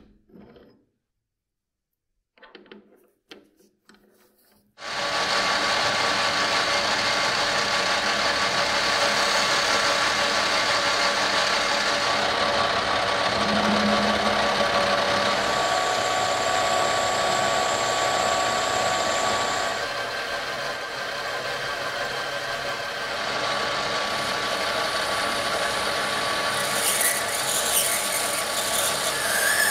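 A few light clicks of brass stock being set in a metal lathe chuck, then the lathe running steadily while a twist drill cuts into the spinning brass. Near the end a boring bar takes over, adding a higher hiss.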